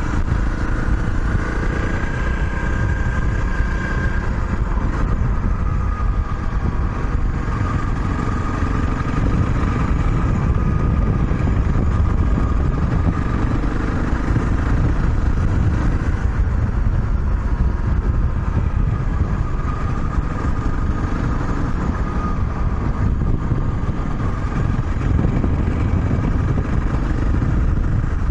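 Honda CRF250 Rally's single-cylinder engine running steadily while the bike cruises, under a dense low rush of wind and road noise, with faint whining tones that drift slowly up and down in pitch.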